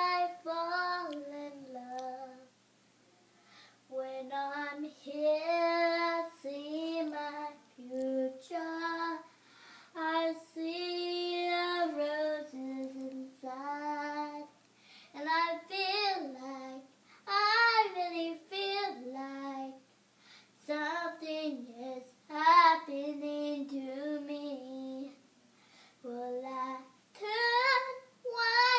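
A young girl singing a song unaccompanied, in phrases of held and gliding notes with short breaks between them.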